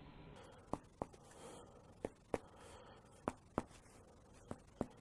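Clinical percussion of the abdomen: a finger tapping sharply on the examiner's other finger laid flat on the patient's flank. It is heard as four double taps, evenly spaced a little over a second apart.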